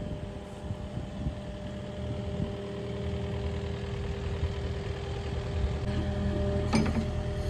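Digger's diesel engine running steadily, with a constant whine over its low rumble. A short, sharp noise comes about seven seconds in.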